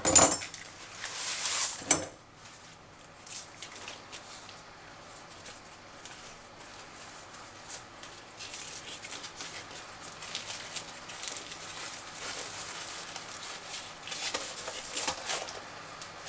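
A ready-rolled puff pastry's paper packaging opened, then the pastry unrolled on its baking paper, the paper rustling and crinkling. The loudest rustle comes in the first two seconds and ends in a sharp click; softer rustles follow in patches.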